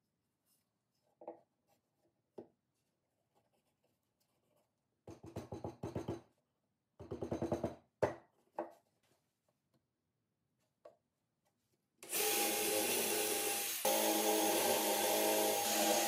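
A few light knocks and two short runs of rapid rubbing as a pine board is handled and set down on a pine tabletop with a sharp knock. Then a cordless drill-driver starts up and runs steadily, boring down into the pine top; it is the loudest sound.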